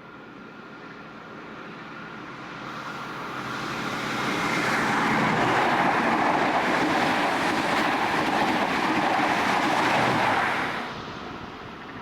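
Countrylink diesel passenger train passing at speed, wheels running on the rails. The sound swells as it approaches, stays loud for about six seconds, then drops off sharply near the end as the last carriage goes by.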